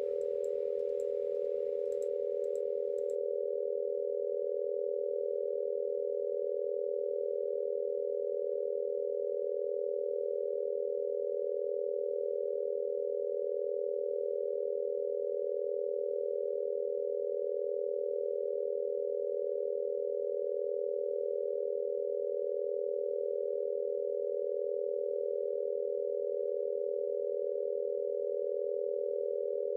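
Five pure sine tones at 405, 445.5, 486, 526.5 and 567 Hz sounding together as one steady, unchanging chord.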